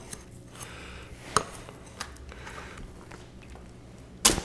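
Kiritsuke deba knife slicing a tilapia fillet free along the rib bones on a cutting board: quiet cutting and handling with a couple of faint ticks, then one sharp knock near the end.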